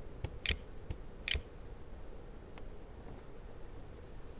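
Computer keyboard keys clicking: two sharp keystrokes just under a second apart, with a few fainter ticks after them, over a low steady background hum.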